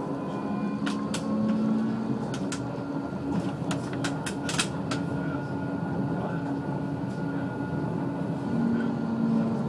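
A tram running, heard from inside the car: a steady rumble and motor hum, with a run of sharp clicks in the first half as the wheels cross track junctions.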